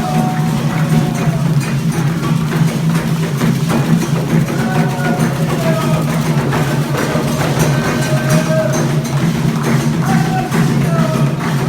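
Music with percussion: a continuous low drone with a melody line that slides in pitch above it.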